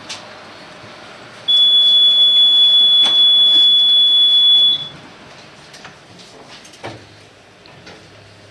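Tatra T6A5 tram's door-closing warning tone: one steady high beep lasting about three seconds, starting a second and a half in, over the low hum of the standing tram. A knock follows near the end.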